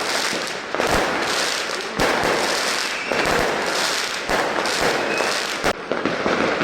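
Consumer fireworks going off: continuous loud crackling and hissing, broken by several sharp bangs every second or two.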